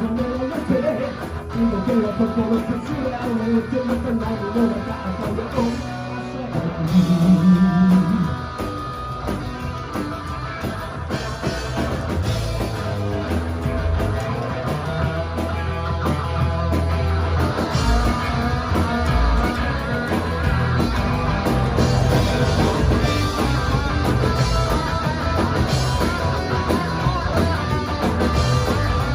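Rock band playing: electric guitar, bass and drums, with the band filling out and getting busier about a third of the way through.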